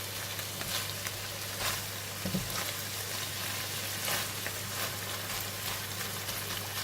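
Food frying in hot oil: a steady sizzle with scattered sharp crackles and pops, and a low steady hum underneath.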